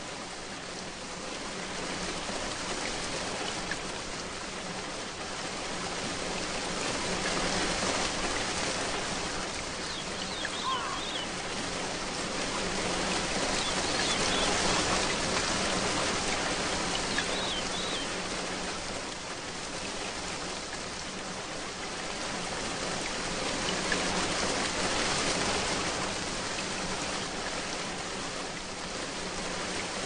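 Torrential rain pouring down, a dense, steady hiss of a heavy downpour that swells and eases in slow waves.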